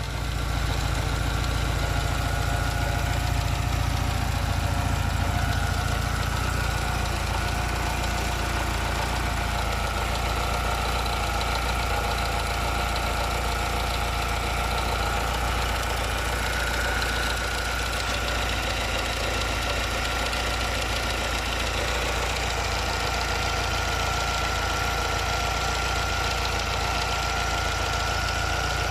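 Alfa Romeo 75 1.8 ie engine idling steadily, with a grinding noise and a steady high-pitched whine running over it: the fault the owner is showing.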